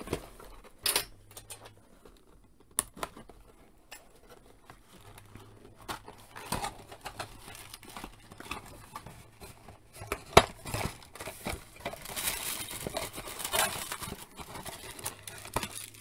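Cardboard packaging being handled and worked open: a printed card sleeve is pried at and an inner cardboard tray slid out, giving scattered taps and scrapes. A sharp knock comes about ten seconds in, followed by a few seconds of sliding and rustling cardboard.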